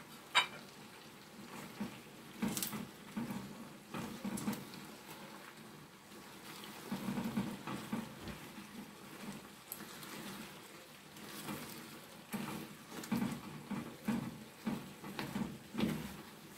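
A pan of palm-oil stew with fish, crab and meat simmering with a crackling, bubbling hiss while a silicone spatula stirs through it, making irregular wet squelches. Two sharp knocks sound right at the start.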